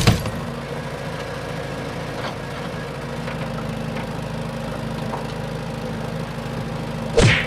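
Diesel engine of a Bobcat E35 mini excavator idling steadily, with one short louder noise near the end.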